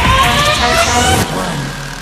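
Background music with a rising sweep that cuts off a little over a second in, leaving a fading tail.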